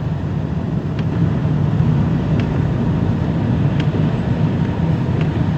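Road and engine noise inside a moving car's cabin: a steady low rumble that grows slightly louder, with faint ticks about every second and a half.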